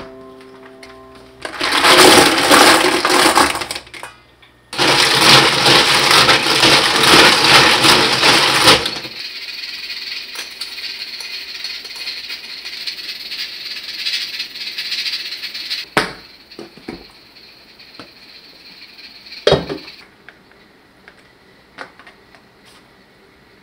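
Cockle shells clattering against each other and a stainless steel bowl in two loud spells of several seconds, as the cockles are tipped into the bowl and washed. A quieter, steady washing noise with a few sharp knocks follows.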